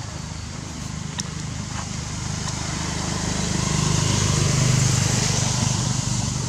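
A motor engine running steadily with a low hum, growing louder to a peak about four to five seconds in and then easing off, like a vehicle passing close by.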